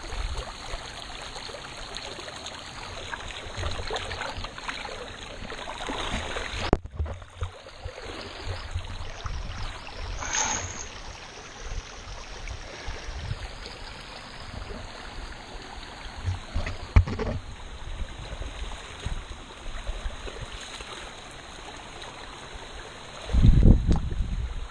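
Feet wading and splashing through a shallow, flowing creek, with the water running throughout and scattered low thuds of steps. A loud low rumble on the microphone comes in near the end.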